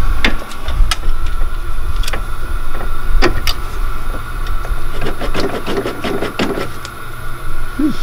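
Scattered metal clicks and knocks of a hand tool and bar working against the front suspension and driveline parts of a Polaris RZR, a quick run of them a little past the middle, over a steady low rumble.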